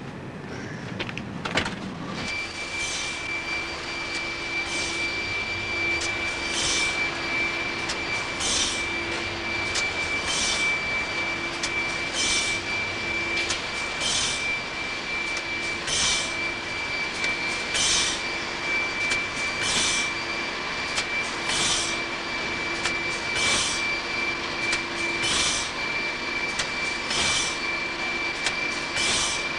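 Pastry production-line machinery running, starting about two seconds in: a steady high whine with a hissing pulse repeating about every two seconds.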